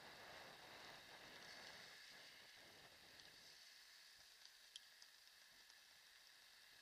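Near silence: a faint even hiss, a little fuller in the first half, with a faint tick about five seconds in.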